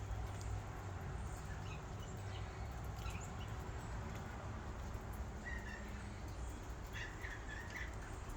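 Birds calling: scattered short chirps, then a few brief calls from about five seconds in, over a steady low rumble.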